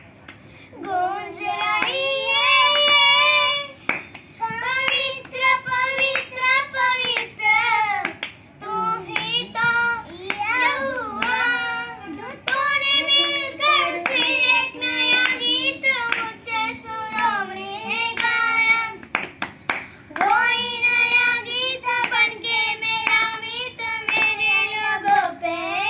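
Two boys singing a Hindi Christian devotional song (masihi geet) in unison, unaccompanied, clapping their hands along with the song.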